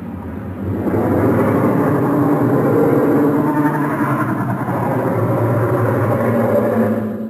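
Sound effect for an imagined orca–shark hybrid creature: one long, rough, low call that builds over the first second and then holds steady.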